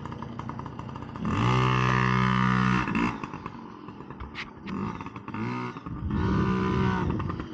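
Small dirt bike engines running on a dirt track. The engine note comes up strongly for about a second and a half, drops away, and rises again near the end. There is a single sharp click midway.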